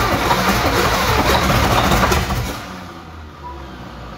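Long-dormant old diesel truck engine cranking and catching on ether sprayed into its intake. The loud run cuts off a little over two seconds in, leaving a quieter low hum: a start attempt that does not keep running.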